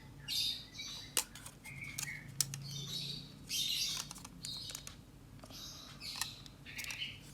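Irregular plastic clicks and short scrapes from the shell of a Tecware Exo Plus gaming mouse being handled and pried at its snap-fit clips to release the top cover, with several sharp clicks among the scrapes.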